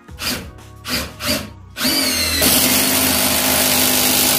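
Keyang 18V cordless impact driver in third speed mode driving a 150 mm self-drilling screw into wood. A couple of brief trigger bursts come first. About two seconds in, the motor whines up and then runs under steady load, loud and continuous, as the long screw goes in.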